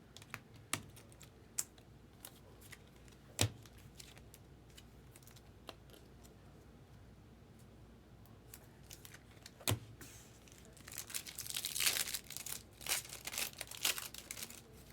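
Trading cards being handled, with scattered sharp clicks and taps, then a foil card pack crinkling and rustling as it is torn open, about eleven seconds in.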